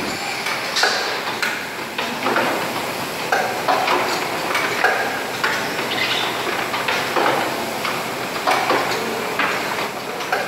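Automatic lid placing and tightening machine for plastic jars running, its capping head and conveyor making irregular clacks and knocks over a steady machine noise.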